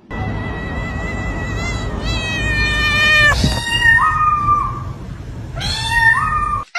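A domestic cat meowing in long, drawn-out calls: first a long high call lasting about three seconds that drops at its end, then two shorter calls that each rise in pitch. A steady low rumble runs underneath, and the sound cuts off suddenly just before the end.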